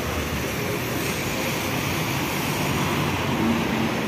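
Steady rushing drone of a large bus engine running close by.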